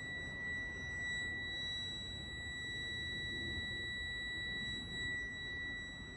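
A steady, high-pitched electronic buzzer tone holding one pitch without a break, over a low background rumble.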